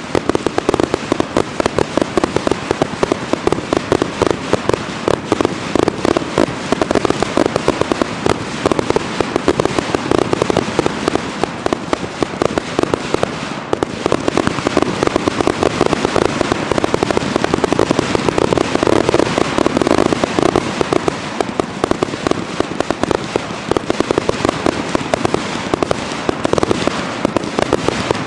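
Fireworks salute cakes firing as a finale barrage: a dense, unbroken stream of sharp bangs, many a second, with no let-up.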